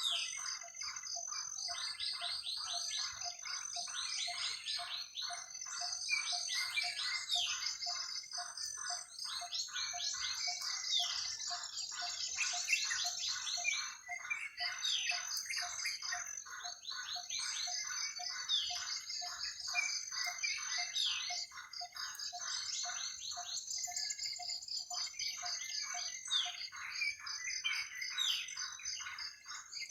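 Night forest chorus of calling animals: a steady rhythmic pulsing call about two to three times a second, which stops near the end, with quick high chirping trills and a thin steady high-pitched tone over it.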